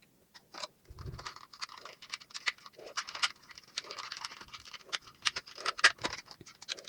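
Toy packaging being handled and opened: plastic and cardboard crinkling and rustling, with a dense run of small clicks and a soft thump about a second in.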